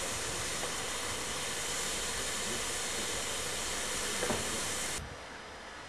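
Peppercorn A1 Pacific steam locomotive 60163 Tornado standing with steam escaping in a steady loud hiss. The hiss cuts off suddenly about five seconds in.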